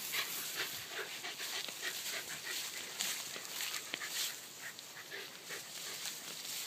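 Two Shetland sheepdogs playing together at close quarters, making short dog noises over a steady crackle and rustle of long grass.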